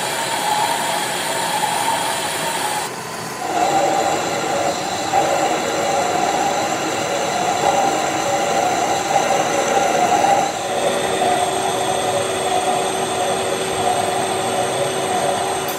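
Vertical lathe turning a cast iron V-belt pulley, its tool cutting the spinning casting with a steady whine and machine hum. The sound breaks off briefly about three seconds in, and its tone changes again about ten and a half seconds in.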